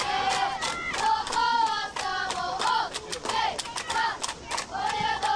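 Spectators clapping in a quick rhythm while a group of high, young voices chants and shouts in long drawn-out calls.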